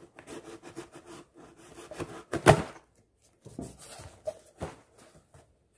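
Serrated knife cutting open a shipping box: a run of short scraping, rasping strokes, one loud sharp scrape about two and a half seconds in.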